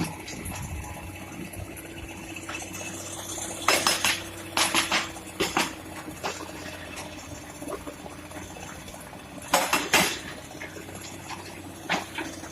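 Excavator working in a river: a steady engine hum with clusters of sharp metallic clattering knocks, the loudest about four seconds in and again around ten seconds in.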